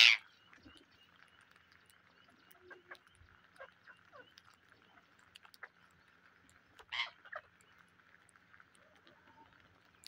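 Rose-ringed parakeets feeding: a loud, harsh screech right at the start, then two shorter calls about seven seconds in, with faint ticks of beaks pecking grain throughout.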